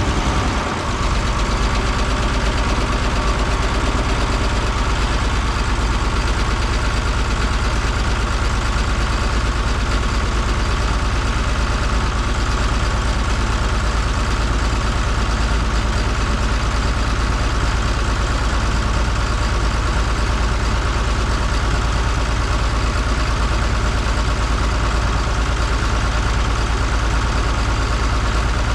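Cockshutt 1750 tractor's diesel engine idling steadily just after a cold start without ether or glow-plug preheat. It settles into an even idle about a second in.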